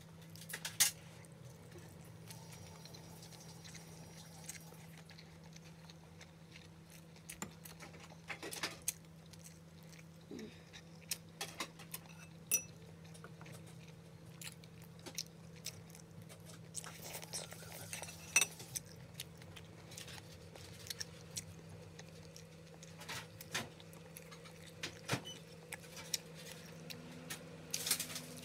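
Close-up eating sounds: chewing, with scattered light clicks and taps of fingers and chopsticks against a plate, over a steady low hum.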